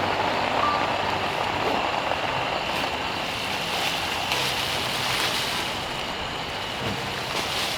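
Steady light rain falling on a tent, an even hiss, with a faint steady high tone running through it.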